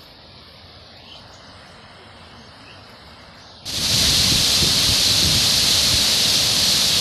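Water flowing quietly over a low spill in a stone channel, then, a little past halfway, an abrupt switch to the loud, steady rush of a waterfall pouring onto rock into a pool.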